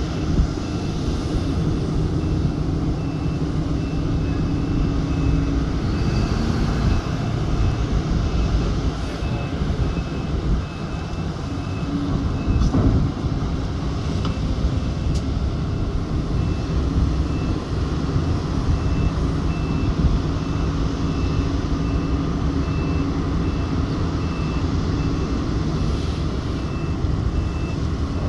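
Heavy diesel engines of a Sany SY980HS excavator and a Komatsu HD785 haul truck running under load, with a backup alarm beeping over them. The beeping stops for a few seconds about halfway, and there is one sharp knock just before that gap.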